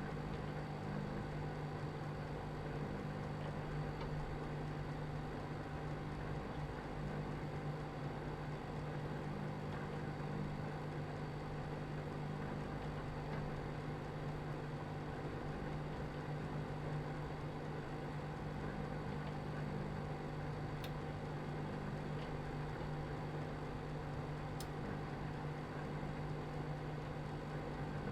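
Microwave oven running: a steady low hum and whir of the magnetron and fan, with two faint ticks late on.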